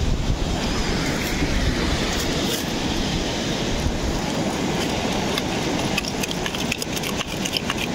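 Wind rumbling on the microphone over beach surf, while a perforated metal sand scoop is pushed into the sand. In the last couple of seconds, a quick run of sharp clicks as sand and pebbles rattle in the shaken scoop.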